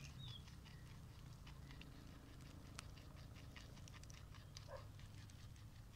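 Faint, crisp nibbling and crunching: a guinea pig chewing raw fennel.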